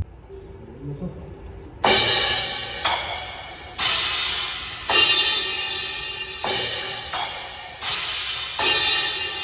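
Meinl crash cymbals on a drum kit struck one at a time, about eight hits, each left to ring and fade before the next, as in a cymbal sound check.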